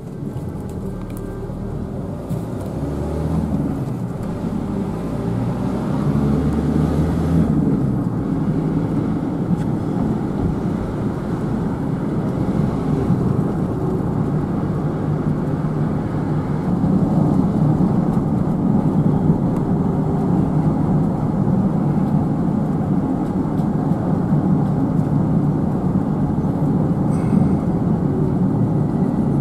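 Road noise inside a moving vehicle: engine and tyres running as a steady low rumble that grows louder over the first six seconds or so, then holds.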